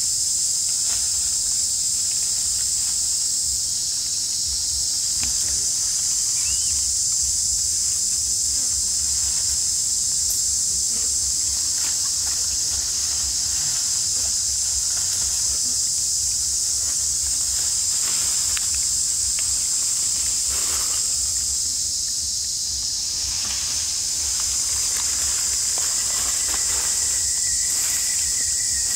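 Daytime insect chorus, a steady high-pitched drone that does not let up.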